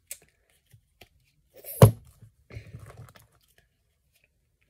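Plastic fashion dolls being handled close to the microphone: scratchy rustling and scraping, with one sharp knock just under two seconds in.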